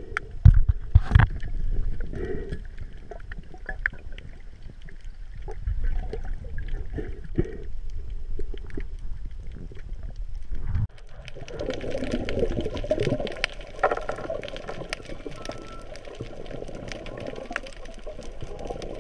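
Underwater sound picked up by a diving camera: water sloshing and gurgling, with a few sharp knocks about a second in. Partway through it changes suddenly to a dense crackle of clicks over a steady hiss.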